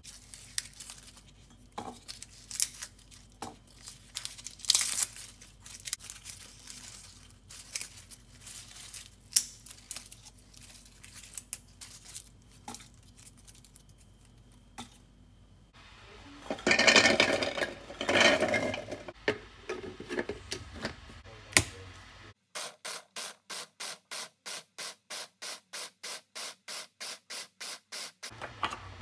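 Papery garlic skins crackling and tearing as cloves are peeled by hand, in many short scratchy clicks, with a louder rustling stretch partway through. Near the end an electric food chopper mincing the garlic gives a fast, even pulsing, about three pulses a second.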